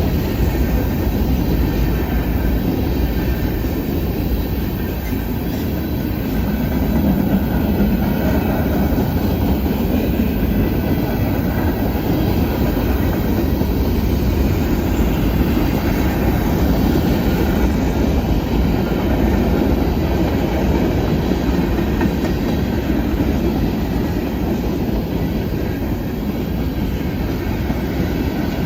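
Freight cars of a Norfolk Southern manifest train rolling past at steady speed: a continuous loud rumble of steel wheels on rail with some clickety-clack over the rail joints.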